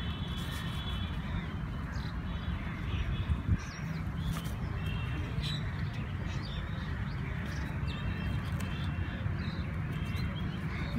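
Birds calling now and then with short, high repeated calls over a steady low rumble.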